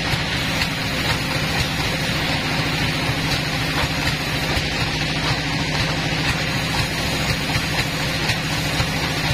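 Band sawmill machinery running steadily at idle, the saw not cutting, with a few faint light knocks over the steady hum.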